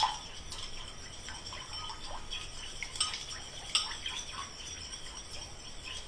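Whisking a lemon and olive oil vinaigrette by hand in a small bowl: scattered clinks and scrapes of the utensil against the bowl as the dressing is worked into an emulsion.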